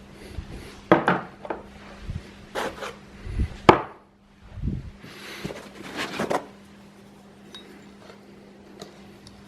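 3D printer kit parts being unpacked and handled: several sharp knocks and clinks as pieces are set down, the loudest a little before four seconds in, and a stretch of rubbing handling noise from about five to six seconds in, over a faint steady hum.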